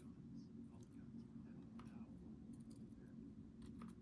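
Faint, scattered small clicks of ASSA 700 lock parts being handled during reassembly, heard over a low steady hum.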